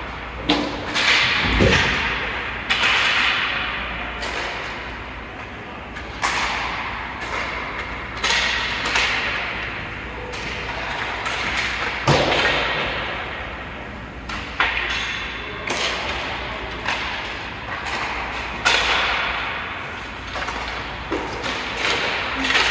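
Ice hockey play: skates scraping and carving the ice, with repeated sharp knocks and thuds of sticks, puck and boards echoing around the rink.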